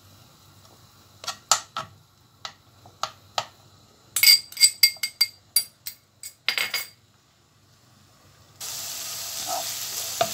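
A metal spoon clicking and clinking against a non-stick frying pan as grated onion is stirred in oil, with a quick run of ringing clinks about four seconds in. Near the end a steady sizzle of the onion frying starts suddenly, with a wooden spatula scraping the pan over it.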